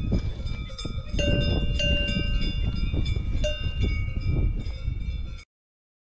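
Bell hanging from a grazing cow's neck clanking irregularly, about two to three clanks a second, over a steady low noise. It cuts off suddenly about five and a half seconds in.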